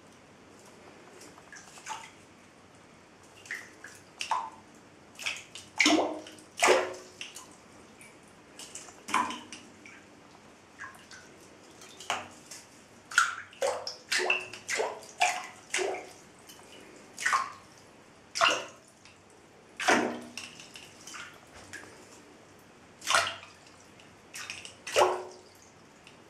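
Water plopping and splashing in a filled bathtub as a small plastic fishing lure is pulled through it on a rod: about twenty short, sharp plops at irregular intervals, some with a brief ringing pitch.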